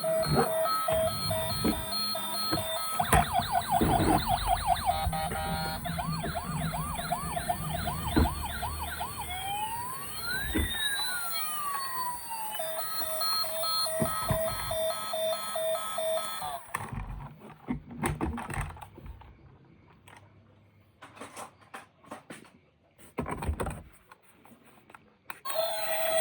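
Electronic siren of a toy emergency vehicle cycling through its patterns: a pulsing beep, a fast yelp, slower rising whoops and a pair of crossing up-and-down glides, then the pulsing beep again. It stops about 17 seconds in, leaving scattered clicks and knocks.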